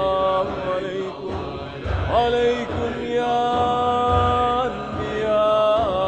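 A man's voice chanting salawat (blessings on the Prophet) in a slow, melismatic line. He holds long notes and slides up and down between them.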